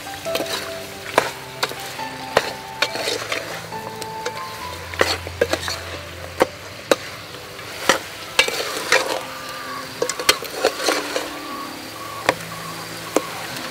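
Metal ladle stirring pork ribs in an aluminium pot, clinking and scraping against the pot many times at an irregular pace, over the sizzle of the meat frying in oil and spices.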